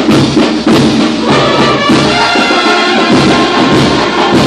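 Live brass band with drums playing loudly: horns and a tuba-like bass horn holding notes over a steady drum beat.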